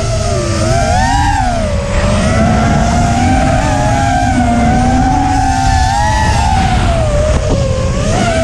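Eachine Falcon 250 quadcopter's brushless motors and propellers whining in flight, heard from the onboard camera: several close pitches rise and fall together with the throttle over a steady low rumble.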